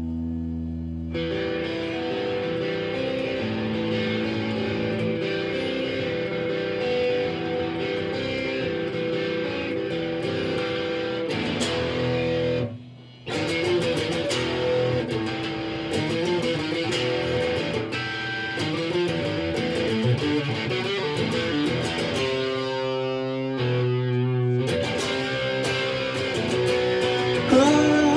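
Electric guitar played through an amplifier, strumming sustained chords, which stop for a moment about halfway and then come back in.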